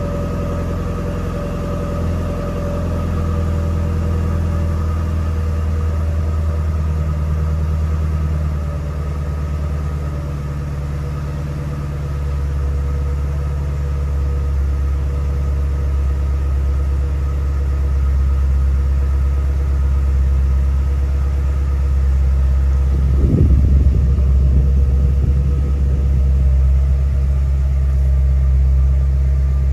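2017 Shelby GT350R's 5.2-litre flat-plane-crank V8 idling steadily, heard from inside the cabin as a deep, even hum. The engine is still cold, just after start-up, with oil at about 66 °F.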